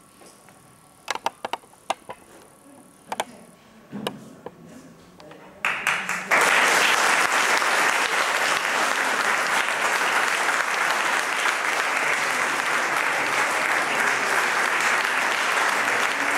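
A few isolated claps and knocks, then a theatre audience starts applauding about six seconds in and keeps up steady applause.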